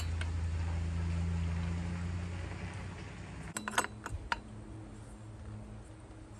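A few sharp metallic clinks close together about three and a half to four seconds in, from a chainsaw and tools being handled, over a steady low hum that fades away in the first half.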